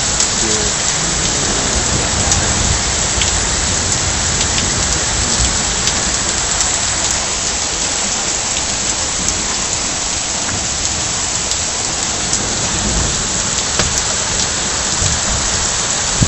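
Heavy downpour in a rainstorm: a steady, dense hiss of rain pouring onto the street and nearby surfaces.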